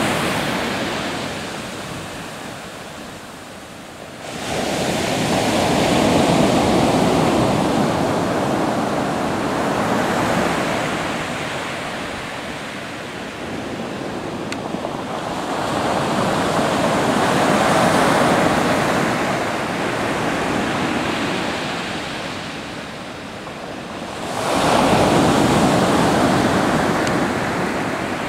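Pacific Ocean surf breaking and washing up the beach in slow surges: three waves come in, one sharply about four seconds in, a gentler one midway and another sharply near the end, each swelling and fading back over several seconds.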